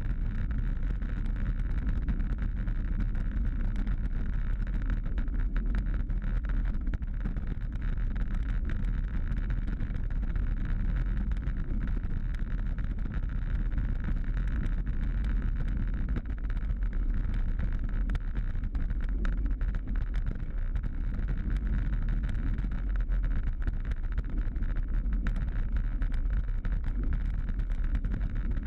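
Steady wind noise and low road rumble on a bicycle's handlebar-mounted camera as the bike rolls over cracked, potholed asphalt, with many small rattling clicks from the bumps.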